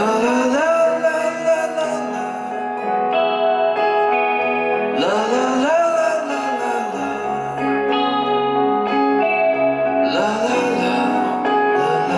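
Live band playing an instrumental break: an electric guitar lead with notes that bend upward, over acoustic guitar, bass and drums.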